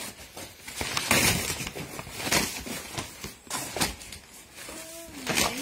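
Cardboard packaging and plastic wrap being torn and pulled off a new kayak, a series of crackling, rustling rips.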